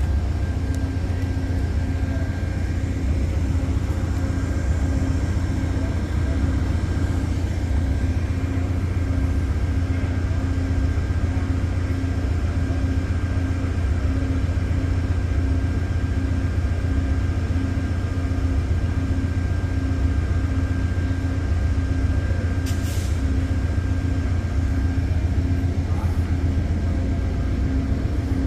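Norfolk Southern freight train rolling past, a steady low rumble of railcars with an even rhythmic pulse. A thin steady high tone runs over it and stops a few seconds before the end.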